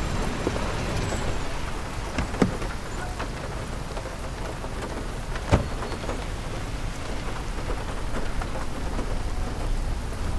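Steady rain falling, with scattered drips and two sharper taps about two and a half and five and a half seconds in.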